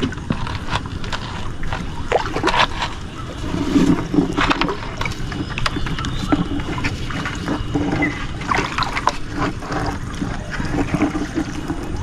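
Water splashing and dripping around a small boat as it is paddled, with repeated knocks and clicks of gear against the hull.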